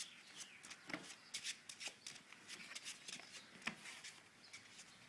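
Yu-Gi-Oh trading cards being handled and laid down on a table: scattered light clicks and rustles.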